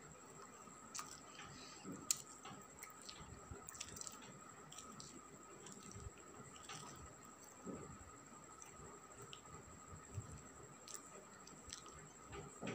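Faint, scattered small clicks and soft smacking sounds of a cat nibbling at something on the floor, over a steady faint high-pitched whine.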